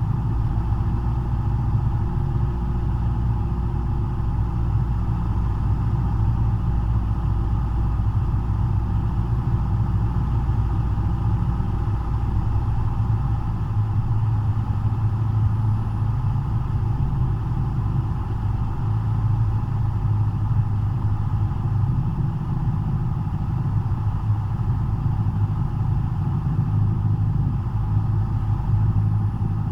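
Cessna 172's piston engine and propeller running steadily, heard from inside the cockpit as a constant low drone. The engine note shifts slightly about halfway through.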